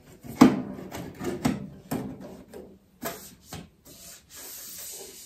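Handling of a small toaster oven and its loose glass door: a series of knocks and scrapes, then a steady rasping rub near the end.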